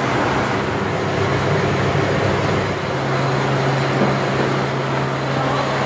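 Nougat-mixing machine beating a thick gaz (Persian nougat) mass in a metal bowl. Its motor makes a steady hum that drops slightly in pitch about three seconds in, over a constant noisy din.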